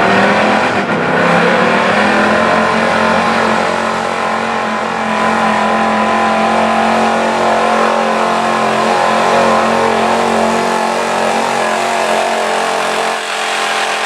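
1977 Ford F-350's gas engine run hard at high revs under full load while dragging a truck-pull sled. The pitch climbs at launch, holds steady for most of the pull, then drops near the end as the pull stops.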